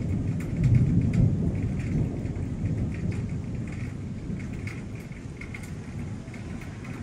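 Low rumble of thunder, loudest about a second in and slowly easing off, over steady heavy rain with scattered drops ticking close by.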